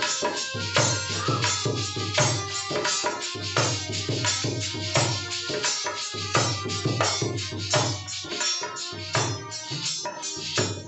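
Instrumental folk music: a harmonium holds sustained chords over a steady, fast hand-drum rhythm, with jingling metal percussion on top.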